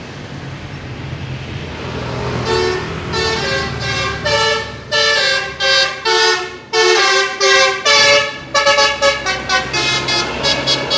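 Bus 'telolet' multi-tone air horn playing a tune of stepped notes over the running engine. The notes begin about two seconds in and break into a quick run of short notes near the end.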